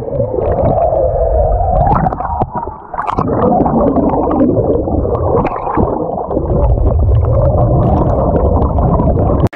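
Muffled rushing and gurgling of water heard with the microphone under water, with wavering low tones and rumble. Near the end the sound suddenly clears as the microphone comes back up into the air.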